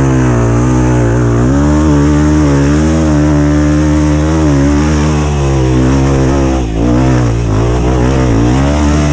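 Dirt bike engine revving, its pitch rising and falling again and again as the throttle is worked on slippery mud, with a brief drop about seven seconds in.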